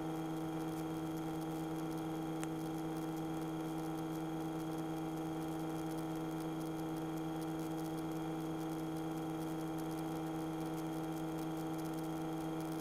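Steady drone of a Cessna 152's engine and propeller in flight, coming through the cockpit intercom recording as an even hum of several steady tones.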